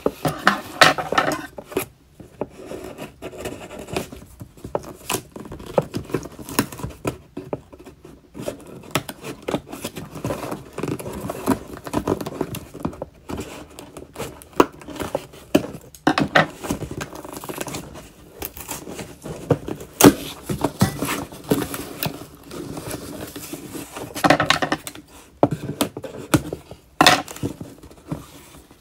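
Cardboard shipping box being opened by hand: packing tape torn and peeled, with cardboard flaps scraping and rustling and irregular knocks and crinkles.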